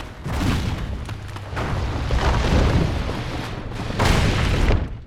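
Deep rumbling and crashing of collapsing rock and falling debris, coming in three loud surges and cutting off suddenly near the end.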